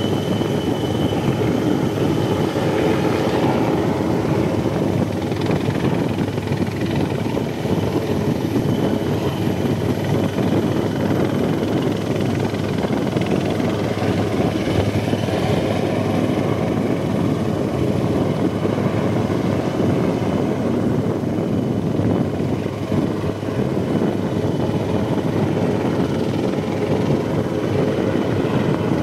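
Helicopter hovering, its rotor and engine making a loud, steady noise.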